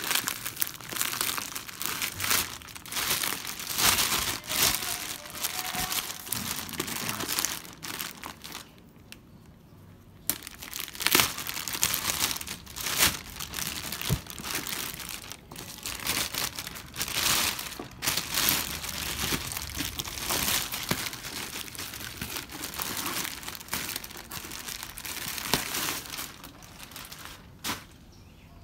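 Plastic courier bag crinkling and tearing in irregular bursts as it is cut open with a knife and pulled off a cardboard box, with a pause of about two seconds a third of the way in.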